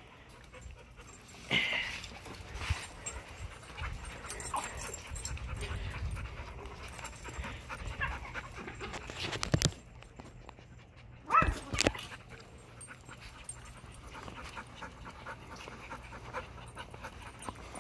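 Dogs panting at play, with a low rustle of movement and a few short sharp sounds, one near the start and a couple more past the middle.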